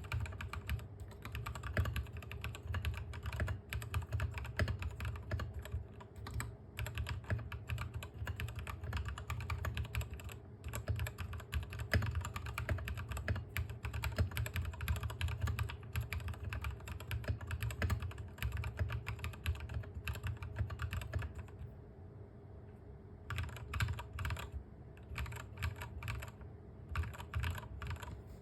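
Continuous typing on a Royal Kludge RK68 mechanical keyboard with lubed Gateron Milky Yellow linear switches, XDA-profile keycaps and foam in the case: a fast, irregular stream of keystroke clacks. There is a short pause in the typing about three-quarters of the way through.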